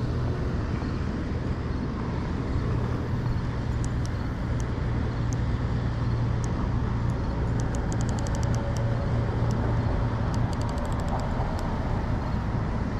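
Steady low rumble of road traffic on the bridge, with short runs of faint, rapid clicks from a baitcasting fishing reel during a fight with a catfish.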